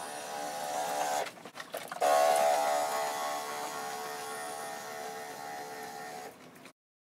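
FlowZone Cyclone battery-powered backpack sprayer's pump motor running with a steady whine. It cuts out for under a second about a second in, then starts again louder and runs until it stops suddenly near the end.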